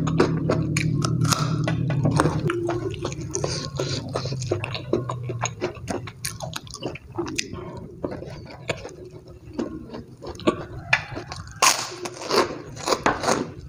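Close-up chewing and crunching of crisp fried food eaten by hand: fried chicken crumbs and a krupuk cracker, with sharper, louder crunches near the end. A low steady hum sits under the first few seconds and fades out.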